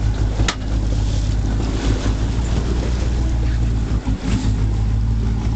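Fishing boat's engine running with a steady low hum, under wind on the microphone and water noise. There is one sharp click about half a second in.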